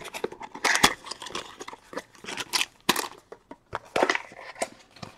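Plastic wrap and card-box packaging crinkling and rustling in a quick, irregular string of crackles as a trading-card box is handled and opened.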